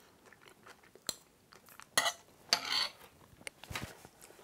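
A spoon clinking and scraping against a plate a few times, sharp taps about a second and two seconds in, with faint chewing as the food is tasted.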